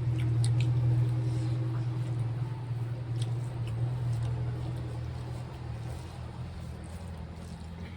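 A motor vehicle's low engine rumble, fading gradually, with a few faint clicks over it.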